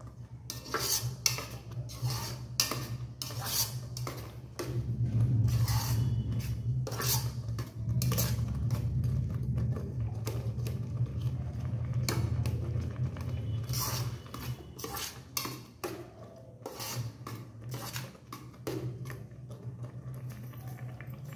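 A metal slotted ladle stirs vermicelli and jaggery in an electric rice cooker's metal inner pot, scraping and clinking against the pot many times in an uneven rhythm. A steady low hum runs underneath.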